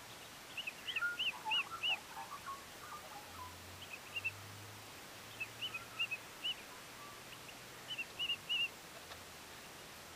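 Birds calling: several runs of four or five short, arched high chirps in quick succession, with softer, lower twittering in the first few seconds.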